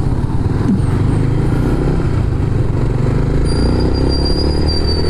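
Motorcycle engine running while riding, its pitch climbing gradually from about three seconds in as it speeds up. A thin high whine sounds over it in the second half.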